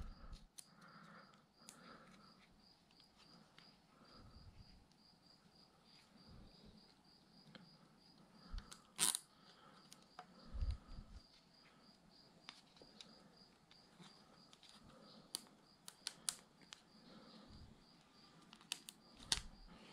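Faint handling sounds of a plastic zip tie being threaded around a rubber inner-tube strip on a bike frame: scattered light clicks and ticks, a sharper click about nine seconds in and a soft knock just after, with a faint high-pitched pulsing tone in the background.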